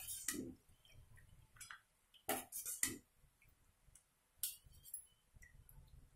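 Steel slotted spoon clinking against a steel frying pan as crisp fried nimki are scooped and tipped about. A handful of sharp clinks, the loudest two come about two and a half and three seconds in.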